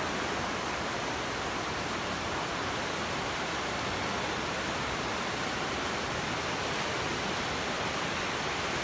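Ocean surf breaking on a beach: a steady, even rushing of waves and foam.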